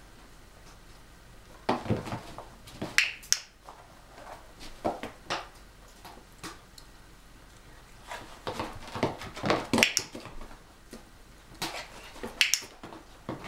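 Irregular sharp clicks and short scuffs in clusters, from an Italian greyhound moving about on a hard floor during nose-touch target training.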